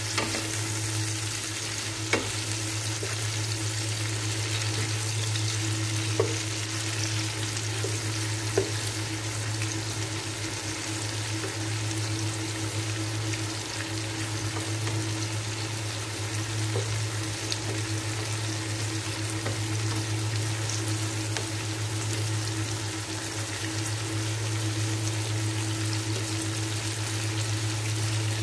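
Whole shrimp sizzling as they sauté with garlic and onion in a nonstick frying pan, stirred with a wooden spatula that ticks against the pan a few times. A steady low hum runs underneath.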